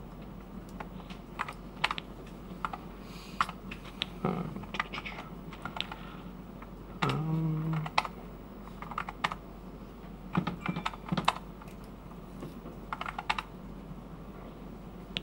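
Scattered single key presses on an Apple IIgs keyboard as a menu is stepped through. A brief low tone sounds about seven seconds in.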